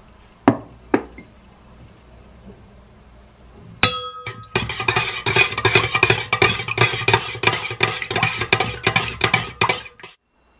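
A metal utensil stirring liquid in a stainless steel mixing bowl, clinking and scraping rapidly against its sides for about five seconds. About four seconds in, a single sharp tap sets the bowl ringing; two light clicks come near the start.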